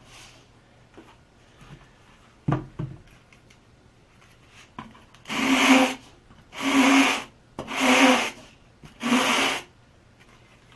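End of a foam-board fuselage being sanded on a sheet of sandpaper to smooth it off. There is a single knock about two and a half seconds in, then four sanding strokes of under a second each in the second half.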